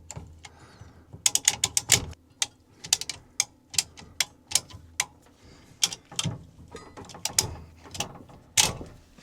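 Irregular sharp clicks and ratcheting of a hand tool working on water-heater plumbing fittings, with a quick run of about six clicks between one and two seconds in.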